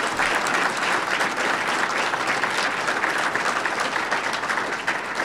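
A room of people applauding: the steady, dense clatter of many hands clapping at once.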